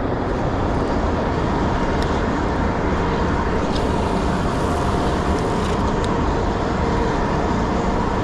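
Boat motor running steadily under a loud, even rush, with faint steady tones.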